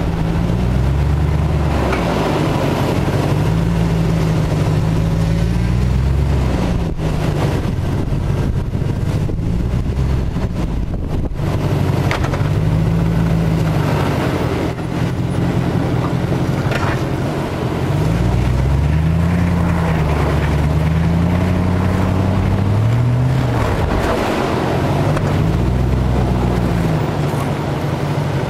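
Jeep Grand Cherokee WJ's engine working under load while crawling off-road, the revs rising and falling every few seconds as the throttle is worked, over steady tyre-and-dirt noise. A few sharp knocks sound about a third of the way in.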